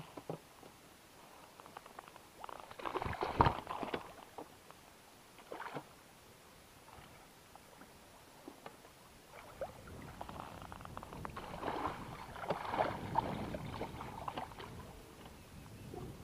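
Water splashing and sloshing as a hooked wels catfish thrashes at the side of an inflatable pontoon boat, in irregular bursts with knocks: a loud burst with a sharp knock about three seconds in, and a longer bout of splashing in the second half.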